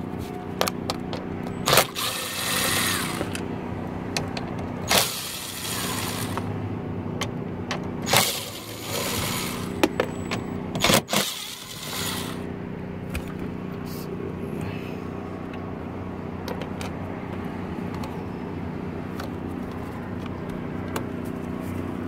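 Cordless drill-driver with a socket extension running in about four short spells, backing out the 7 mm screws that hold a truck's lower dash trim panel. Sharp clicks fall between the runs, and a steady low hum sits under everything. The runs stop a little past halfway.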